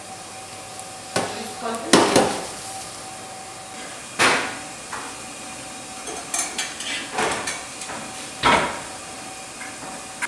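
Commercial kitchen clatter: sharp knocks and clanks of kitchenware, loudest about two seconds in and again near the end, with a run of lighter clinks in between, over a steady faint hum.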